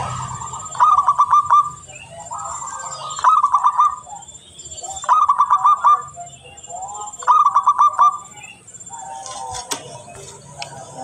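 Zebra dove (perkutut) cooing: a quick string of staccato coo notes repeated in four phrases about two seconds apart, stopping about three-quarters of the way through.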